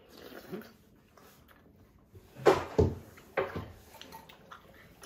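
Close-up eating and drinking sounds at a dinner table. After a quiet start, a cluster of short, wet slurps and mouth noises comes about halfway through.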